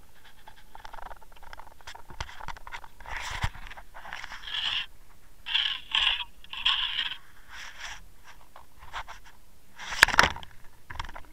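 Handling noise on an underwater action camera being hauled aboard: irregular rubbing and scraping on its housing, with several short rushing bursts in the middle. About ten seconds in comes a sharp splash as it drops back into the water.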